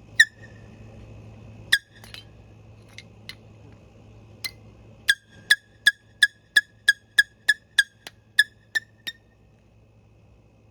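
Hammer striking a handheld air horn: a hard hit just after the start and another after about a second and a half, a few lighter taps, then a quick run of about a dozen blows, roughly three a second. Each blow is a sharp clank with a short ring.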